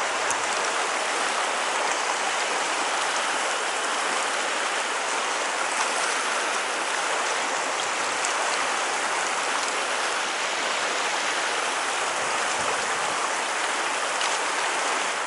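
Steady rush of water in a shallow mountain stream, an even unbroken babble.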